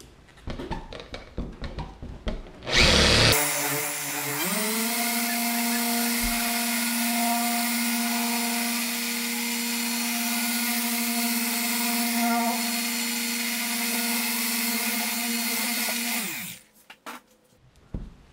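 Orbital car polisher with a foam pad run at a set speed (speed 4) on car paint. After a few handling knocks it starts with a brief loud burst, rises in pitch to a steady run for about twelve seconds, then winds down near the end.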